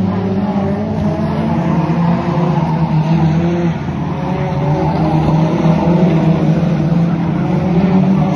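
Formula 2 stock car engine running loud and steady at racing speed, easing off briefly about four seconds in before picking up again.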